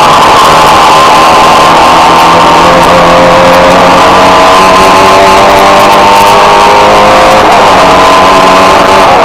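Race car engine heard from an onboard camera, running hard at sustained high revs with its pitch drifting slowly as the car holds speed through the turns. It is very loud and overloads the small microphone.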